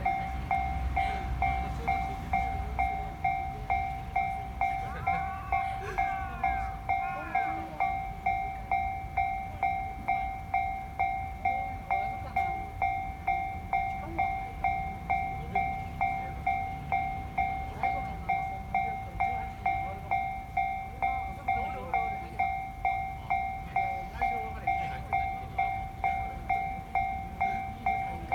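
Japanese railway level-crossing warning bell ringing on and on at an even pace of about one and a half strikes a second, while the crossing stays closed. A train's low rumble is heard under it in the first few seconds.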